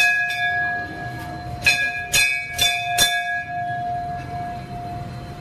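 Temple bell struck about five times in quick succession, most of the strikes in the first three seconds, each leaving a long metallic ring that fades out near the end.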